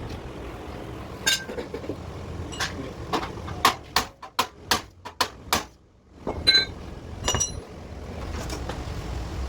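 Metal knocks and clinks on steel in a body shop: scattered sharp knocks, a quick run of about six strikes midway, then two clinks that ring briefly.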